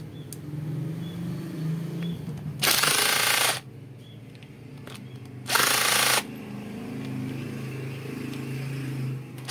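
Cordless impact driver run in two short bursts, each just under a second, backing out the bolts on a pressure washer pump's manifold; a third burst starts at the very end.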